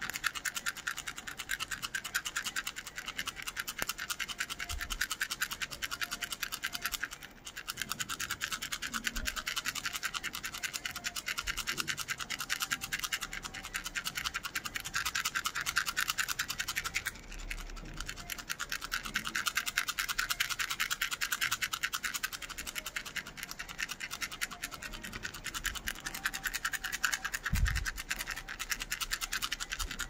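Hollow orange plastic toy rattle shaken rapidly and continuously, giving a dense, fast, scratchy rattle. It pauses briefly about seven seconds in and again about seventeen seconds in.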